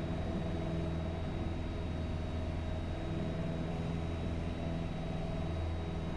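Piper PA-28's freshly overhauled piston engine and propeller droning steadily at climb power just after takeoff, heard from inside the cockpit.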